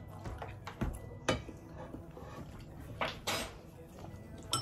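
Metal fork and knife clinking and scraping against a ceramic plate while eating: a handful of separate clicks, with a short scrape about three seconds in.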